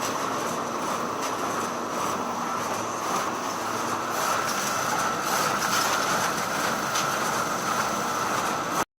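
Photocopier running: a steady mechanical whir with a thin high whine and faint ticks, a little louder from about four seconds in, then cutting off abruptly near the end.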